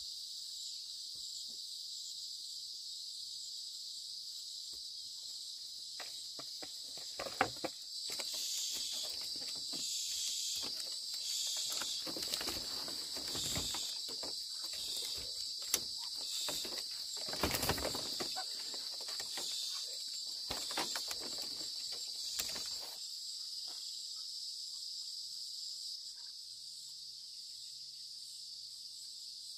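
A steady, high-pitched insect chorus runs throughout. From about a fifth of the way in to about three-quarters of the way through, irregular rustling and crackling with a few sharp clicks and knocks sits on top and is the loudest sound.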